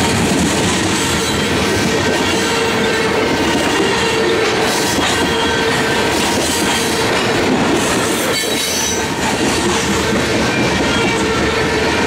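Covered hopper cars of a grain train rolling past close by: a loud, steady rumble of steel wheels on rail, with a thin, steady wheel squeal over it.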